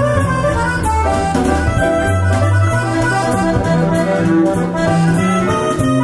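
Music playing: a passage with a bass line, melodic instrument lines and a steady beat.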